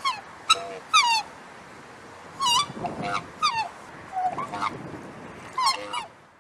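Black swan calling: a series of about ten short honks, each sliding down in pitch, some coming in quick pairs.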